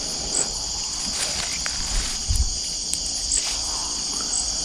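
Steady night chorus of crickets and other insects, a continuous high chirring, with a brief low bump about halfway through.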